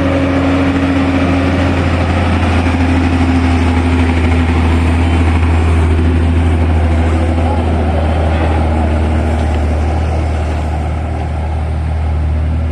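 Tour bus diesel engine idling with a steady low drone.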